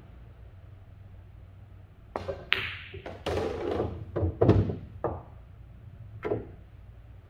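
Pool shot: a cue tip striking the cue ball and the click of the cue ball hitting the object ball about two seconds in. The pocketed ball then rolls and knocks heavily as it drops away through the pocket, the loudest thud coming about halfway through, with a couple of lighter knocks after.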